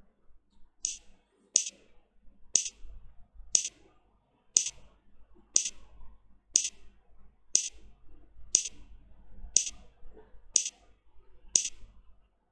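Earbud latency-test app's click tone, sounding about once a second for roughly a dozen clicks; each click marks the moment the on-screen ball drops, so its lag behind the drop shows the Bluetooth audio delay.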